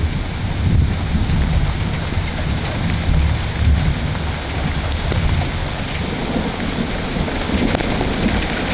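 Thunder rolling as a continuous low rumble that swells and eases, over the steady hiss and scattered pattering of rain just starting to fall.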